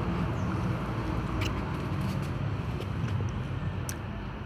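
Steady low rumble of outdoor background noise, with a couple of faint short clicks about a second and a half in and near the end.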